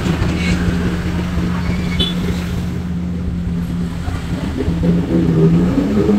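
Daihatsu Ayla 1.2 engine idling steadily through its exhaust, a low, even hum that wavers near the end.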